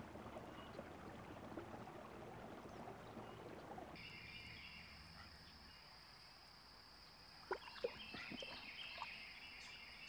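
Faint outdoor wildlife ambience: a low even rushing at first, then from about four seconds in a steady high trill with rapid chirping under it. A few soft clicks come near the end.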